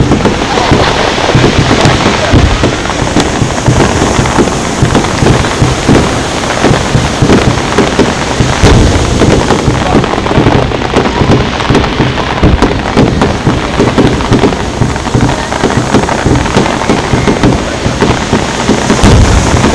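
Underwater fireworks bursting at the sea surface in rapid succession: a loud, unbroken run of bangs, thuds and crackling.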